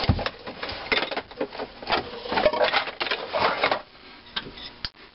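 Steel pipe clattering and scraping over a cast-iron bench vise handle as it is slipped on as a cheater bar and the vise is worked tighter on a valve stem held in split collets. A thump at the start is followed by a run of quick metal clicks and scrapes, which thin to a few single clicks after about four seconds.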